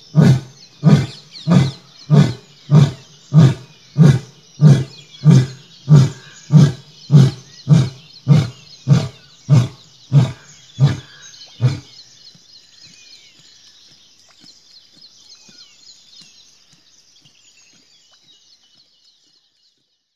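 Male lion ending a roaring bout with a long series of short, deep grunts, about one every half second and slowly weakening, that stop about twelve seconds in. Birds chirp faintly in the background.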